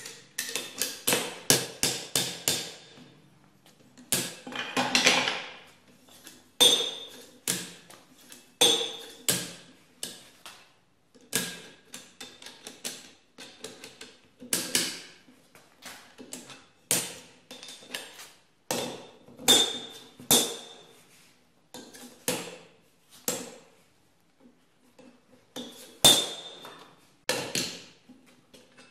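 Steel knocks and taps on an anvil-mounted hardy-hole tool as its parts are hammered and fitted. A quick run of strikes comes first, then irregular ringing clinks with pauses and a short metallic scrape about five seconds in.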